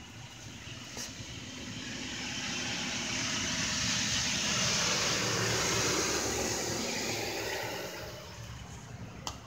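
A car passing by, its tyre and road noise swelling over several seconds, loudest around the middle, then fading away.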